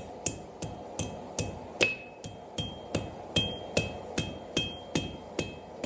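Hand hammer striking a thin hot round-bar taper on a steel anvil, curling its tip into a small scroll. The blows come in a steady rhythm of about two and a half a second, and many of them leave a brief anvil ring.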